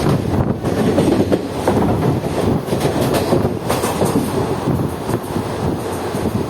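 Passenger express train running, heard from aboard: the steady rumble of coaches on the track with irregular clicks and clatter of wheels over rail joints.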